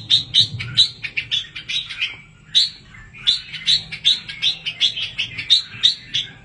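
Red-whiskered bulbul chicks calling: a rapid run of short, sharp chirps, about three or four a second, with a brief lull about two seconds in.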